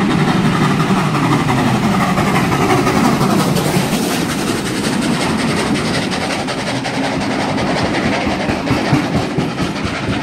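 Steam locomotive 3016 and its train of heritage passenger carriages passing through the station close by at speed: a loud, steady rush of running gear and wheels clattering over the rails, the locomotive going by first and the carriages following.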